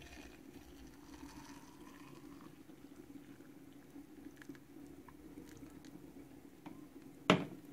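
Freshly boiled water poured from a kettle into a herbal-tea brewing cup of linden flowers, faint, with a few light ticks and a sharp knock near the end.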